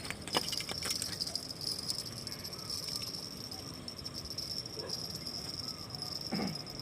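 Steady, high-pitched chirring of insects, with a few sharp clicks in the first second and a short knock near the end.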